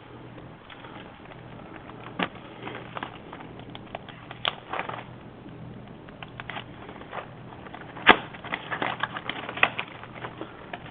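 Scattered clicks, taps and rustles of power-supply cables and connectors being handled and routed in a PC case, with a sharp knock about eight seconds in, over a faint steady hum.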